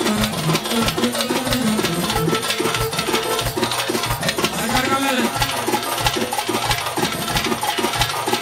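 Live manele dance music from a band with electronic keyboards: a melody over a steady, evenly repeating drum beat.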